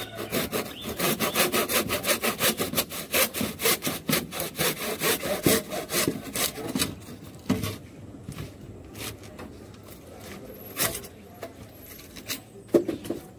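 Hand saw cutting through a thick green bamboo stalk in fast back-and-forth strokes. The sawing stops about seven seconds in, followed by a few scattered knocks and handling sounds.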